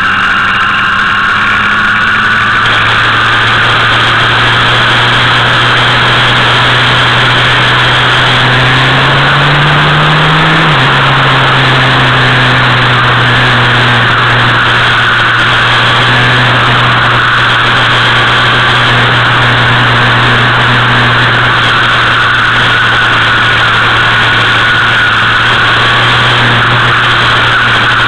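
Motorcycle engine running steadily while riding, over heavy wind rush. About ten seconds in the engine pitch rises briefly, then drops back.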